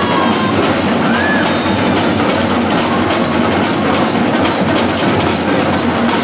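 Marching drumline playing a fast, dense cadence on snare drums and bass drums, continuous and loud, in a gymnasium.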